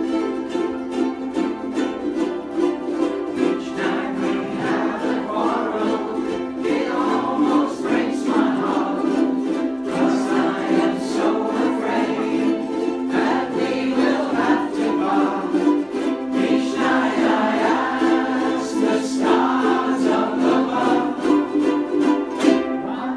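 A group of ukuleles strumming chords together in a steady rhythm, with a group of voices singing along from about four seconds in.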